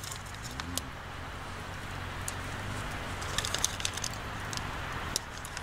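Small wood campfire crackling, with scattered sharp pops and ticks over a steady low background rumble.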